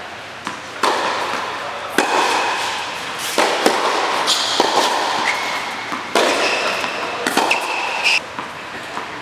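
Tennis rally in an indoor hall: racket strikes and ball bounces about every second, echoing off the hall, with short high squeaks of tennis shoes on the hard court between shots. The rally ends a little after eight seconds in.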